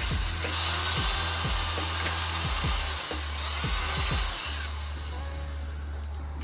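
Power drill running with a steady high whine as it bores a hole through a car's aftermarket side splitter. It eases off about four and a half seconds in and stops near the end.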